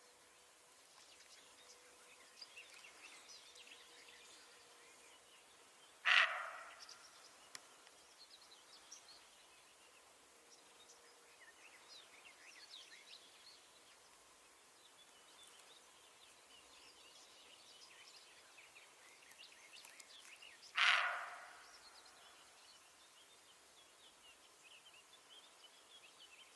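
Roe deer barking twice, two single loud, harsh barks about fifteen seconds apart, each cutting in sharply and fading over about half a second. Faint birdsong chirps in the background.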